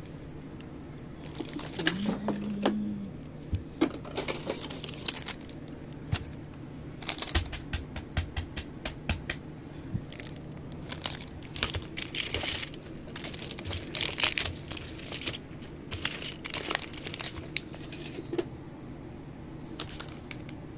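Plastic fidget toys and a crinkly plastic packet handled on a fabric surface: scattered crinkling and light clicks, with a brief low tone about two seconds in.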